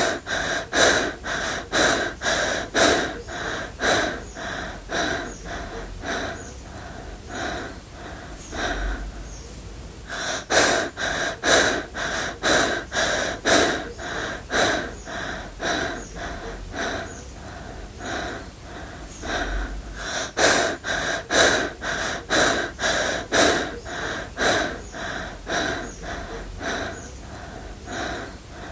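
A person breathing fast and hard, panting quick breaths about two a second, like someone out of breath. The panting comes in three waves that start loud and die down, with fresh loud bouts about a third and two thirds of the way through.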